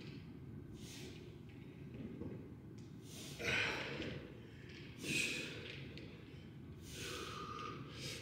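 A man's hard, breathy exhalations, four of them about two seconds apart, as he pushes through repetitions of a weighted chest exercise.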